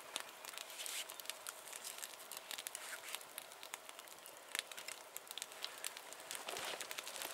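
Wood campfire crackling with many small sharp pops, and a utensil clicking and scraping in a metal pot as raw eggs are beaten.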